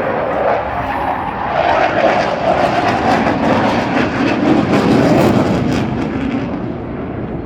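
Eurofighter Typhoon's twin EJ200 turbofan jet engines roaring past, the pitch dropping as the jet goes by, loudest about five seconds in and easing slightly near the end.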